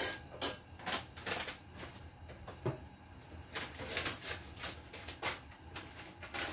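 Saucepan of egg soup at the boil, giving irregular sharp pops and clicks several times a second over a low steady hum.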